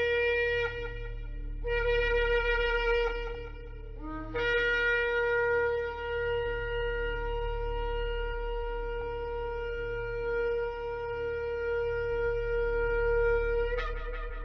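Shofar (ram's horn) being blown: a short blast, then a second of about two seconds, then one long steady blast of nearly ten seconds that jumps up in pitch at its end.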